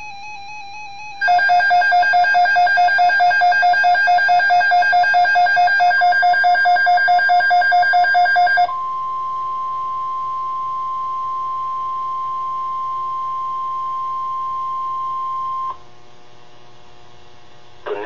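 Weather radio alert tones. A warbling electronic tone plays first. About a second in, a loud, fast-pulsing beep takes over for about seven seconds. Then comes a single steady tone, the NOAA Weather Radio 1050 Hz warning alarm tone that signals an alert broadcast, which stops abruptly a couple of seconds before the end.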